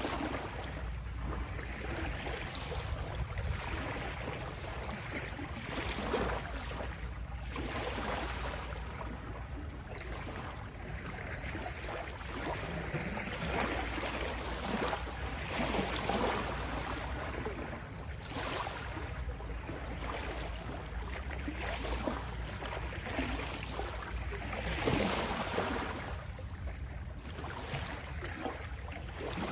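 Small sea waves lapping and rippling at the shore, a steady wash of water with irregular swells and splashes every few seconds.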